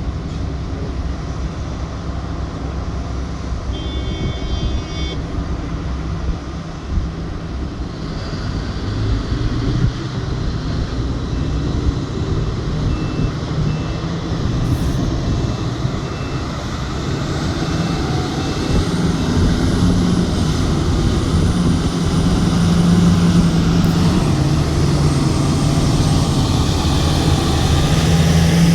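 Heavy diesel engines of a mining excavator and a Komatsu HD785 haul truck during loading: a low, steady engine drone that grows louder and fuller in the second half. A brief high beep sounds about four seconds in.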